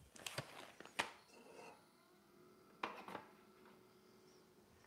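A few light clicks and knocks, the loudest about a second in and another near three seconds, as a metal pitcher is set onto the drip tray of a SPINN coffee machine; in between it is nearly quiet, with no grinder noise heard.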